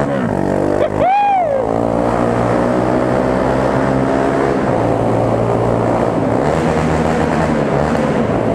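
Motorcycle engine running under way on a wet road: a brief dip about a second in, as at a gear change, then the engine note climbing steadily as the bike accelerates. A short rising-and-falling tone sounds at the dip.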